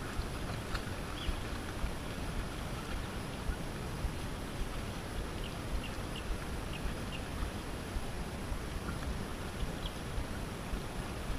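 Outdoor waterside ambience: a steady wash of wind and lapping water with a low rumble and frequent small gusts or splashes, and a few faint short chirps.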